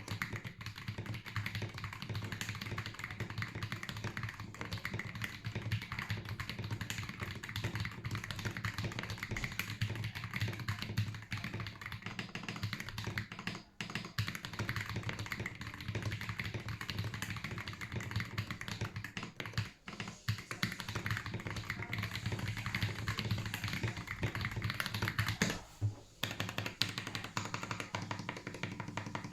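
Fast, continuous typing on a GAS67 mechanical keyboard with Akko Cream Yellow linear switches, a dense stream of deep "thock" keystrokes with a few brief pauses.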